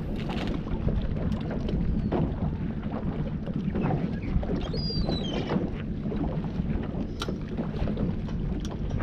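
Wind buffeting the microphone on a small fishing boat over a steady low rumble, with scattered light knocks and a brief high chirp about five seconds in.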